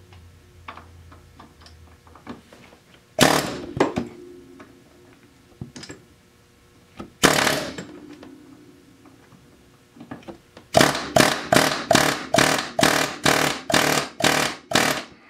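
Hammer blows on metal, driving the dowel pin home in the front differential mount of an ATV: two single knocks with a short ring, then a quick run of about a dozen even strikes, about three a second, near the end.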